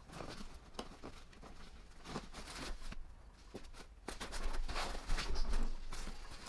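Padded fabric seat of a soft-sided ATV rear bag being handled: rustling, scuffing and soft taps as it is lifted and folded forward against the pack, busier and louder about four seconds in.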